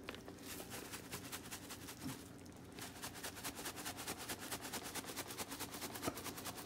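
Dried parsley being shaken from a plastic spice shaker jar: a fast, even rattle of little taps that settles into a steady rhythm about three seconds in.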